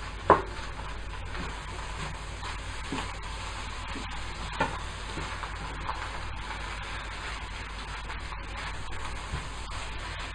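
Fried rice being stirred and turned in a stainless steel frying pan with a wooden spatula: a low steady sizzle with soft scraping and light taps of the spatula on the pan. One short, sharp, loud sound just after the start.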